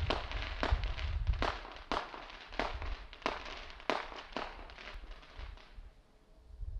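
Aerial fireworks bursting: a string of about eight sharp bangs, roughly one every two-thirds of a second, with crackle between them, stopping about five seconds in.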